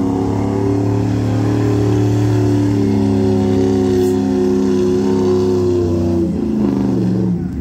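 Pickup truck's engine held at high revs under full throttle during a truck pull, then dropping in pitch as it is let off about six to seven seconds in.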